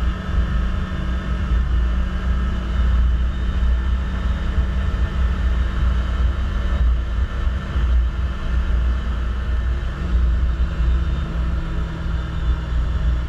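Can-Am Commander side-by-side's V-twin engine running steadily at cruising speed, heard from the driver's seat over a heavy low rumble of the ride on a gravel road. Its tone drops slightly about ten seconds in.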